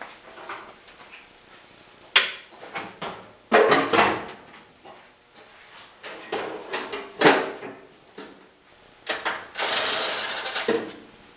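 Metal fuel tank clunking and knocking against the car's trunk as it is lowered in and shifted into position, several separate knocks, then a longer scraping rub near the end.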